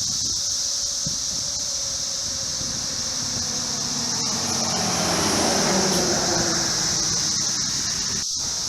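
Brood X periodical cicadas in full chorus, a loud steady high-pitched drone. A vehicle passes in the middle, loudest about five to six seconds in.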